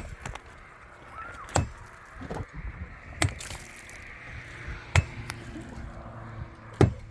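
Five sharp chopping blows in a steady rhythm, about a second and a half to two seconds apart, like a tool striking hard material during heavy work.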